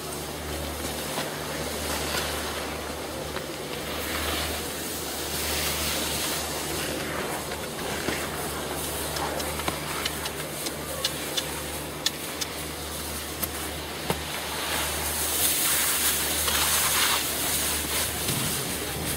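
Wind rushing over the microphone and skis hissing over packed snow as the camera skis along behind a skier; a few sharp clicks in the middle, and the hiss swells near the end.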